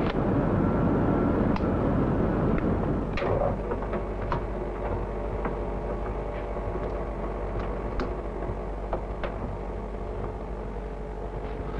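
Steady computer-room machine noise from a mainframe disk drive, cutting off after about three seconds. Then a quieter steady hum with scattered clicks and knocks as a telephone handset is handled and pressed into the rubber cups of an acoustic coupler on a Texas Instruments Silent 700 terminal.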